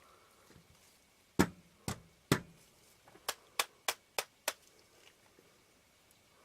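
Sharp taps on the lens barrel while seating a tight-fitting lens element. Three heavier knocks come about a second in, then five quicker, lighter clicks at about three a second.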